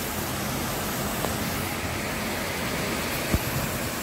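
Heavy rain pouring steadily in a windy storm, an even rushing hiss. A single short thump about three seconds in.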